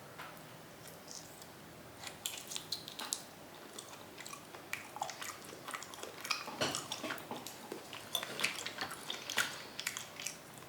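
Wet, smacking mouth sounds of raw chicken being bitten and chewed: a quick, irregular run of moist clicks and squelches starting about two seconds in.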